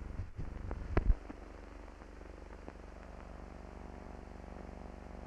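Steady low hum and faint hiss of an old film soundtrack, with a sharp pop about a second in and a few faint ticks.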